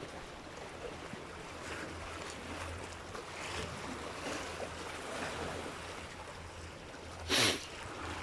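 Sea washing against shoreline rocks: a steady rush of surf that swells a little and ebbs. A short, loud rush breaks in about seven seconds in.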